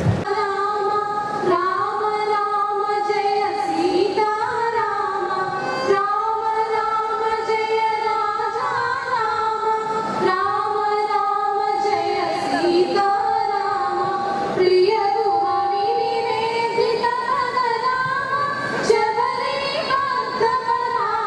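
Two young women singing a song together into one handheld microphone, the melody moving between long held notes.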